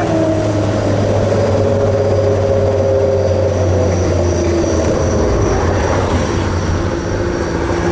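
Steady engine drone and road noise inside the cabin of a 1997 Mitsubishi Eclipse turbo at cruising speed. The engine pitch eases down slightly over the first few seconds, then holds.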